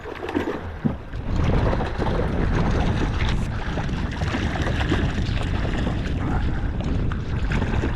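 Wind buffeting the microphone over the sound of open water around a kayak, a steady rushing that picks up about a second in.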